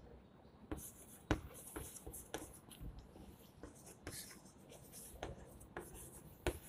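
Chalk writing on a blackboard: faint, irregular scratching strokes with sharp taps where the chalk strikes the board, the sharpest a little over a second in and another near the end.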